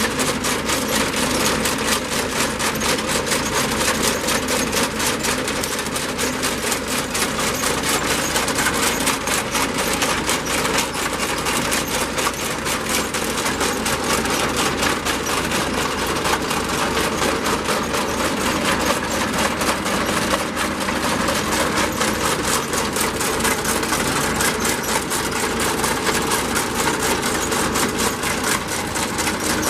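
An engine running steadily with a fast, even mechanical clatter.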